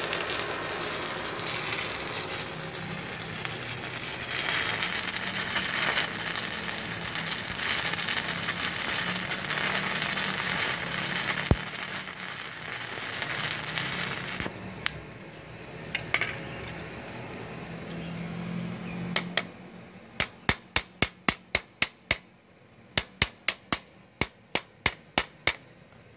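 Stick (MMA) welding arc from a 3.2 mm electrode on a steel flat bar, powered by a MultiPro MIG-MMA/TIG 160 A-SC inverter welder: a steady sizzling that stops about fifteen seconds in. Near the end come two quick runs of sharp taps, about five a second.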